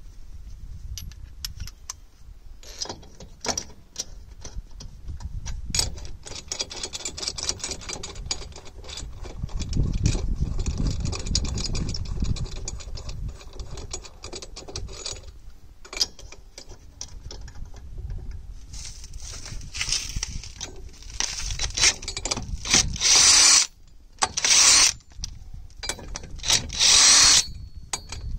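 Lug nuts being fitted onto a wheel spacer on a drum-brake hub: light metal clicks and scraping of nuts being handled and threaded on. Near the end come several short bursts, each under a second, from a cordless power tool spinning the nuts down with a socket.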